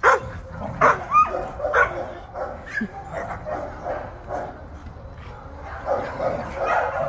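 Dogs barking and yipping as they wrestle in play: several sharp barks in the first two seconds, then a run of quick, shorter sounds.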